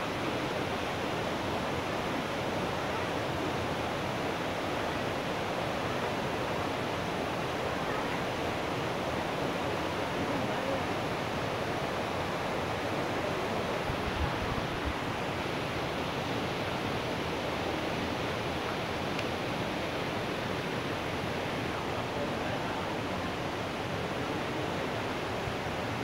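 Rushing water of a shallow, rocky mountain stream flowing fast over stones: a steady, even rush.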